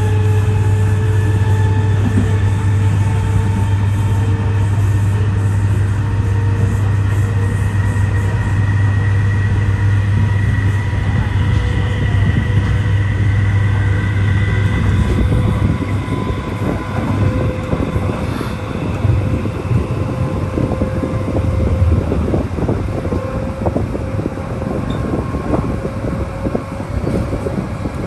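Inside a moving MTR East Rail Line MLR (Metro-Cammell) electric multiple unit: a steady low hum with a motor whine that rises slowly in pitch as the train gathers speed. From about halfway through, the hum breaks up into a clatter of wheels running over the track.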